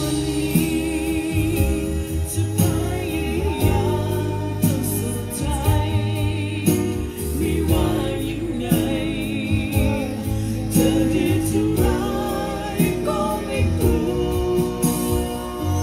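Music with singing over a continuous bass line, with held, wavering notes.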